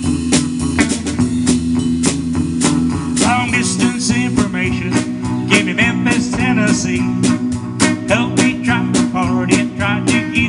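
Live band music on electric guitar and drum kit, with a melody line of bending notes coming in about three seconds in.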